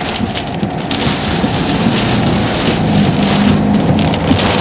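Heavy rain and wind noise during a tornado, dense and steady with fluctuating gusts, over a low hum.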